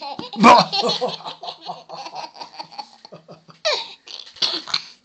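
Baby laughing: a run of quick, pulsing laughs over the first few seconds, loudest about half a second in, then two short laughs near the end.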